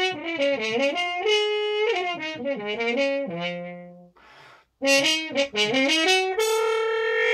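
Solo French horn played with a stop mute, a bluesy tune: a quick run of short notes falling to a low held note, a short breath about four seconds in, then another quick phrase that ends on a long held note.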